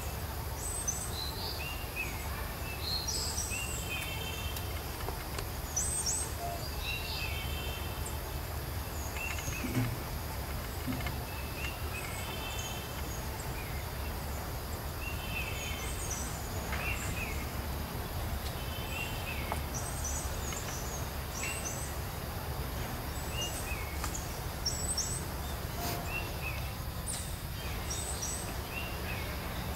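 Outdoor ambience: small birds give short, high chirps and brief trills every second or two, over a steady low rumble.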